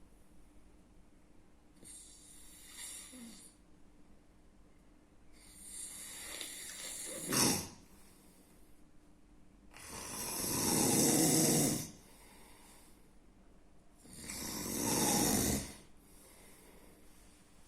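A person snoring in sleep, one snore about every four seconds, growing louder so that the last two are the loudest. One snore, about seven seconds in, ends in a short, sharp peak.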